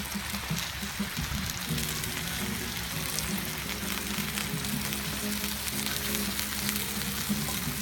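Food frying in a pan: a steady sizzling hiss with fine crackles. Quiet background music comes in about two seconds in.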